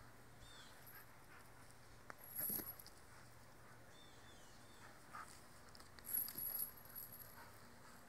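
Metal dog chain rattling in two short bursts, about two and a half and six seconds in, as a chained American pit bull moves about, with a couple of fainter rattles between.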